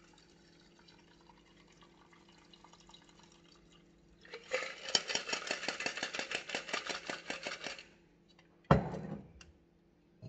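A shaken cocktail is poured from a metal shaker through a fine-mesh strainer into a glass of ice. It is faint at first, then runs as a loud, rapid splashing for about three and a half seconds. Near the end comes one sharp knock, the loudest sound, as bar kit is set down.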